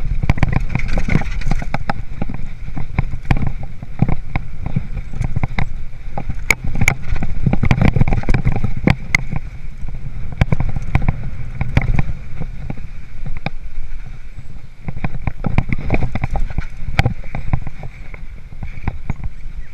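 Hardtail mountain bike riding over a rough dirt trail: a constant low rumble from the tyres and the ride, broken by many quick irregular clicks and rattles as the bike jolts over rocks and bumps.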